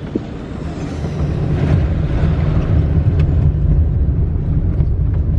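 Car cabin noise while driving: a steady low rumble of engine and road, growing louder about a second in.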